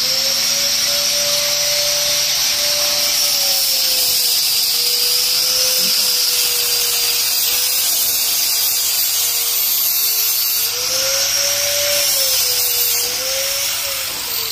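Handheld electric grinder running continuously as it grinds down a Holstein steer's hoof, its whine dipping and rising in pitch as the load changes, then winding down near the end.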